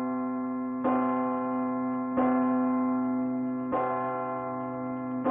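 Large hanging bell tolling. It is struck three times, about every one and a half seconds, and each strike rings on with a deep hum into the next.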